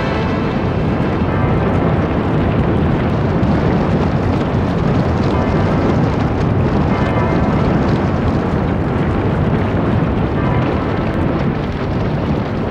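Loud, steady roar of rushing tornado wind, a dense rumble with no breaks.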